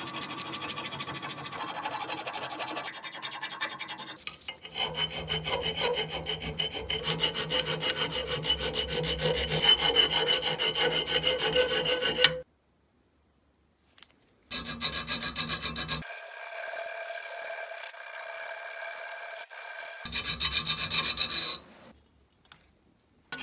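Hand file rasping across the steel of an old pair of pliers held in a vise, in quick repeated strokes, filing down the marks and pitting left on the surface after rust removal and sandblasting. The filing stops for about two seconds a little past the middle, comes back quieter, then stops again near the end.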